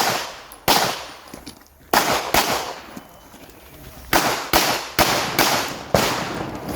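Pistol shots fired in a timed shooting stage: about nine shots in quick pairs and strings, with a pause of about two seconds in the middle. Each shot has an echoing tail.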